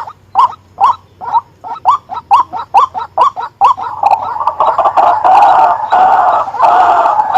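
White-breasted waterhen calling: a rapid run of short repeated notes, about three a second, that merges into continuous, louder calling about four seconds in.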